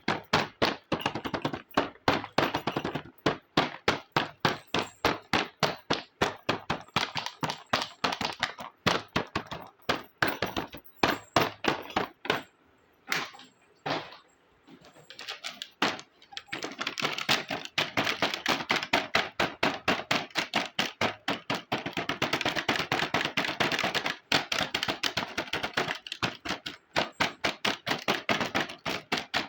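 Small plastic toy kitchen pieces clicking and tapping as they are handled and set down, a few light knocks a second, with a short lull midway and busier clattering after it.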